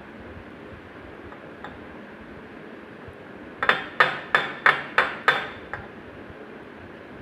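Cut-glass lid clinking against the rim of a glass jar: about halfway in, a quick run of six sharp ringing clinks, about three a second, then one fainter clink.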